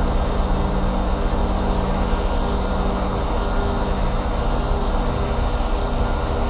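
A steady, dense droning noise with several sustained low tones underneath, unchanging throughout.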